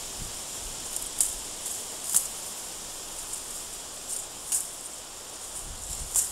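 Summer meadow ambience: a steady high insect hiss with four short rustling bursts.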